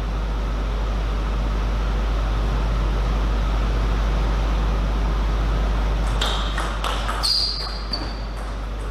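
Table tennis ball clicking several times in quick succession about six seconds in, one click followed by a brief high ringing ping, over a steady hall hum.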